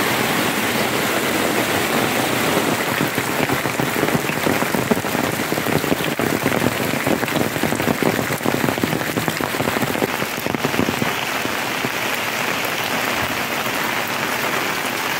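Heavy rain falling steadily, a dense patter of drops on the ground and foliage.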